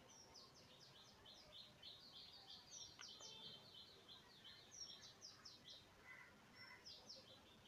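Faint chirping of small birds in the background: quick series of short, high chirps that go on throughout, with one faint click about three seconds in.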